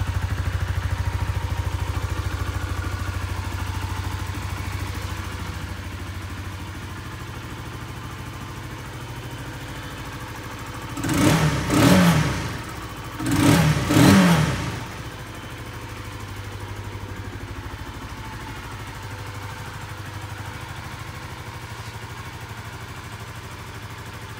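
Honda CBR125R's 125 cc single-cylinder four-stroke engine idling steadily, revved in two short bursts about halfway through, the pitch rising and falling each time before it drops back to idle.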